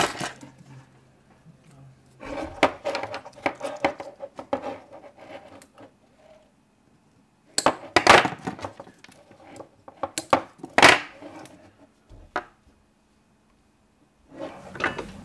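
Handling noise from a small carbon-fibre quadcopter frame being turned over in the hands: clusters of light clicks, knocks and rattles of its parts and wires, with a short silent gap near the end.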